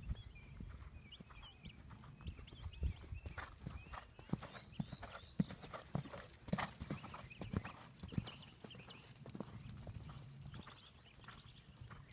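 Hoofbeats of a grey horse cantering over sand arena footing as it rides a jump course: a run of dull thuds, the loudest around the middle as it takes off over a fence.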